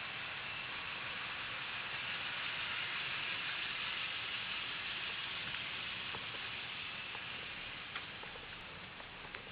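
A steady hiss, slightly louder in the middle, with a few faint ticks near the end.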